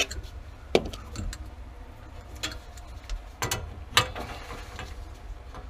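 Scattered sharp clicks and knocks of metal tools and plumbing fittings being handled, with the loudest knocks near one second in and around three and a half to four seconds in, over a low steady hum.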